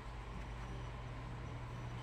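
A steady low hum with a faint even background hiss.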